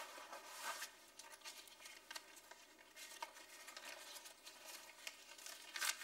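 Faint rustling and crinkling of paper banknotes being taken out and handed over in a few small bursts.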